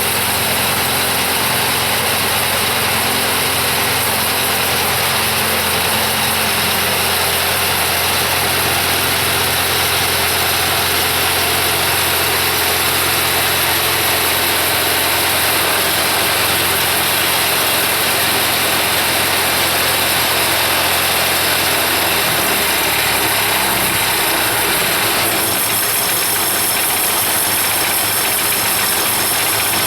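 Kubota V1305 four-cylinder diesel engine on a portable bandsaw mill, running steadily. About two thirds of the way through, its note drops lower and changes.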